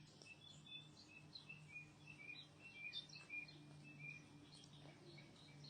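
Faint background of birds chirping, many short high calls throughout, over a low steady hum.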